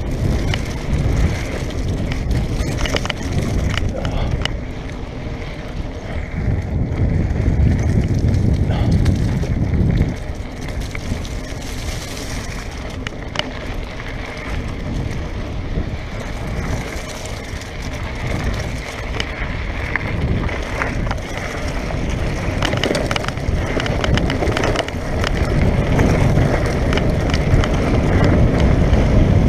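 Mountain bike rolling fast down a dirt and gravel trail: tyres running over loose stones with many small clicks and rattles from the bike, under heavy wind rumble on the microphone that swells and eases with speed.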